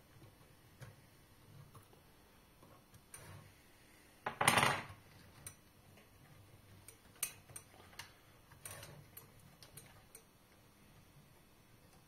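Small plastic and metal parts clicking and knocking as a replacement limit switch and its bracket are fitted by hand onto a Powermatic cigarette-making machine, with one louder clatter about four and a half seconds in.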